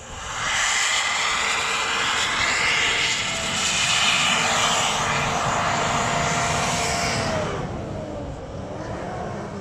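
Pickup truck engine revving hard as the 4x4 climbs a snowy slope. It comes up loud about half a second in, holds, and dies away shortly before the end, with a pitch that rises and then falls near the end.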